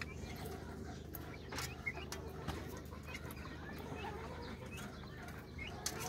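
Month-old turkey poults and a young chicken feeding from bowls: faint scattered pecking taps and a few soft chirps and clucks.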